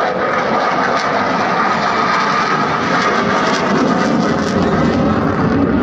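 Jet engine noise of a display jet flying overhead: a steady rushing sound.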